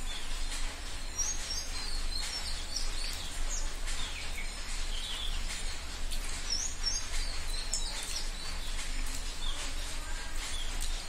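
Small birds chirping in two spells of quick, high chirps, over a steady low hum.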